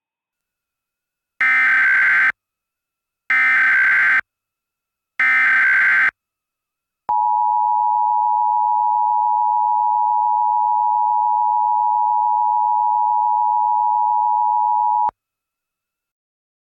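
Emergency Alert System alert start: three SAME header data bursts, each about a second long and about two seconds apart, then the steady two-tone EAS attention signal (853 and 960 Hz) held for about eight seconds and cut off sharply.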